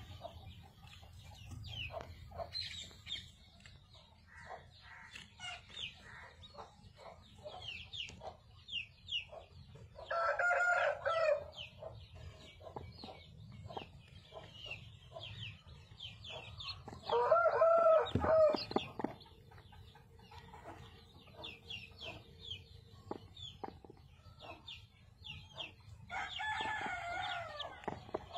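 Newly hatched chicks peeping continuously in short high chirps, and a rooster crowing three times, several seconds apart; the crows are the loudest sounds.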